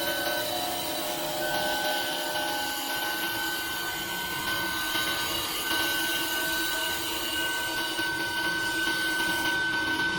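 CNC wood lathe running steadily, its spindle drive giving a constant high whine and a lower hum over a steady hiss as it turns a wooden handle.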